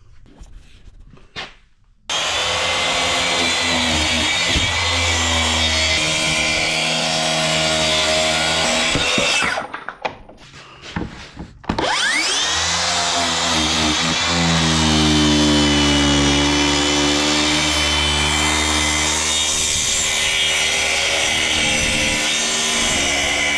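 Track saw cutting through solid plywood: the saw starts about two seconds in and runs steadily through a cut, stops for about two seconds, then spins up again and runs through a second long cut.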